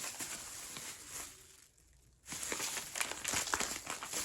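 Crinkling and rustling of plastic packaging being handled, with a brief lull about two seconds in before the rustling resumes.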